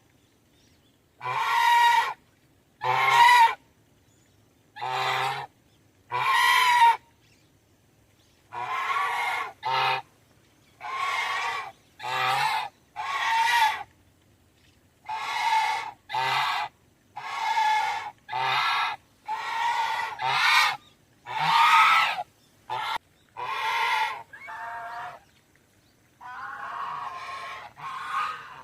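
Domestic goose honking: a series of about twenty separate honks, some short and some drawn out, with brief pauses between them.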